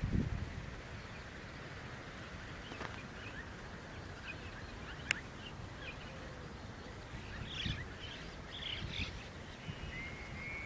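Small birds chirping in short, scattered calls, most of them in a cluster in the second half, over a steady outdoor background hiss. There is a low rumble at the very start and a single sharp click about halfway through.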